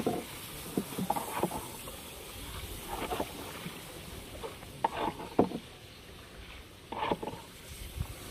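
Small wooden boat moving slowly through a shallow, weedy channel: irregular splashes and knocks of strokes in the water about every one to two seconds, over a low steady wash.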